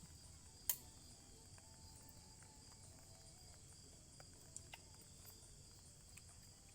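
Steady high-pitched chirring of insects in the forest, two continuous tones, with a single sharp click less than a second in and a couple of faint ticks later.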